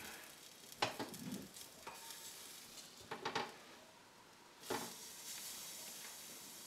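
Grouper steaks sizzling on a Simple Living Products indoor smokeless grill while a spatula scrapes and clicks against the metal grate, flipping a steak. Sharp scrapes come about a second in, around three seconds in and again near five seconds.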